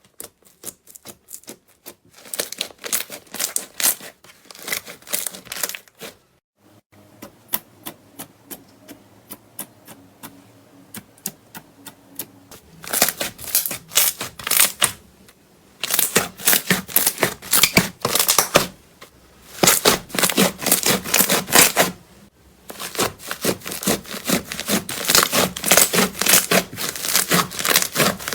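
Slime being squeezed and worked by hand, giving rapid trains of sharp clicks and pops in bursts of a few seconds, with a quieter stretch of sparse clicks in the middle.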